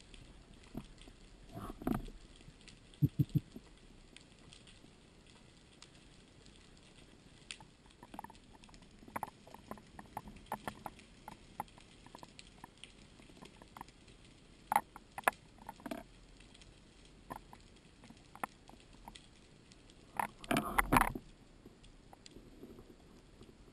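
Underwater sound picked up by a camera housing on a speargun: scattered sharp clicks and crackles over a low hiss. About three seconds in there is a short run of low knocks, and near the end a louder cluster of knocks and rubbing noise.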